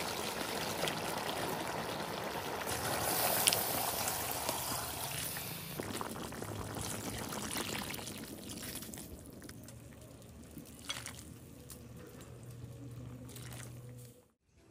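Liquid pouring and bubbling in a large pot of chicken curry cooking over a fire. It is louder for the first several seconds, then settles to a softer simmer with a few light clicks, and cuts out briefly near the end.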